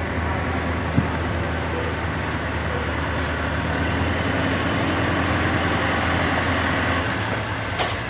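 Caterpillar 426F2 backhoe loader's diesel engine running steadily as the machine drives up, getting a little louder through the middle and easing off near the end. A single knock sounds about a second in.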